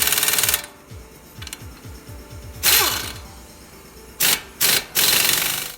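Bursts from a compressed-air shop tool: one long run that stops early on, a short burst around the middle, then three quick bursts near the end. Background music plays underneath.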